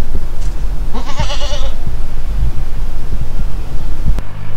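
A single quavering bleat from a farm animal about a second in, over a heavy low rumble. Near the end a sharp click, then a steady low hum begins.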